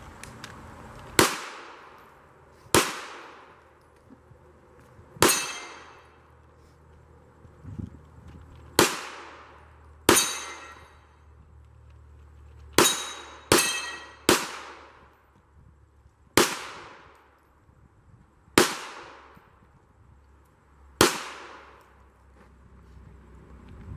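Pistol fired about eleven times in slow, unevenly spaced shots, each report followed by a short echoing tail.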